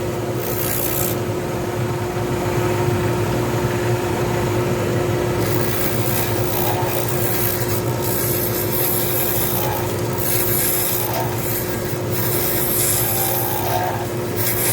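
Lathe spinning a glitter resin pen blank while a tool works it. A steady motor hum runs throughout, with a scraping, rasping noise over it that comes and goes as the tool touches the blank.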